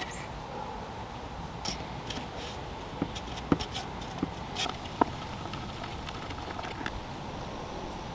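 Light clicks and knocks of wooden table parts and a screwdriver being handled, a cluster of them between about two and five seconds in, over a steady faint background hum.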